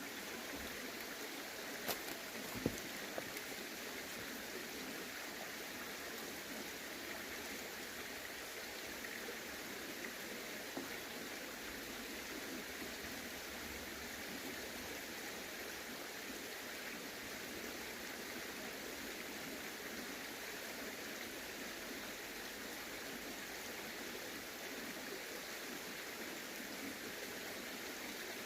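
Stream water running steadily, with a few faint knocks about two to three seconds in.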